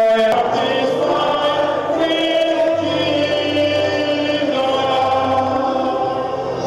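Church choir singing, several voices holding long notes in harmony.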